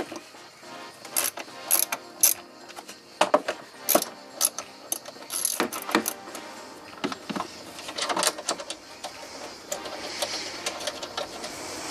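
Hand socket ratchet clicking and metal tools knocking against the hard plastic of a scooter's under-seat storage compartment, in irregular clicks and taps as bolts are worked loose.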